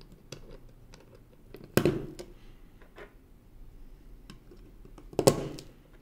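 Mechanical keyboard switches snapping into a clear plate and Kailh hot-swap sockets as they are pressed home, two sharp loud clicks about two seconds and five seconds in. Faint plastic clicks between them as loose switches are picked up and handled.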